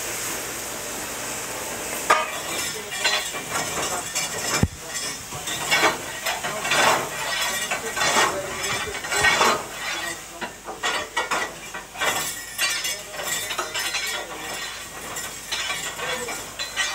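A steam locomotive's fire being raked out. Metal fire irons scrape and clink against the grate and burning coal crackles as it falls, in irregular clinks from about two seconds in, after a steady hiss at first.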